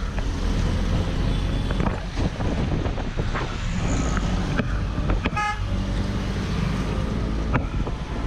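Auto-rickshaw's small engine running steadily while riding through city traffic, heard from inside the open cab with rattles. A vehicle horn toots briefly about five seconds in.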